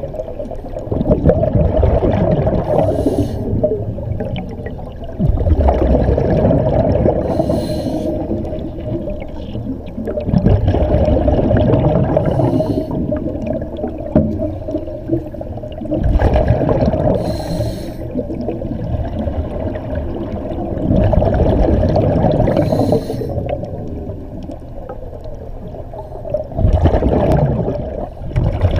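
A scuba diver breathing through a regulator, heard through the underwater camera housing. Each breath brings a rush of exhaled bubbles and a short hiss, in a steady cycle about every five seconds.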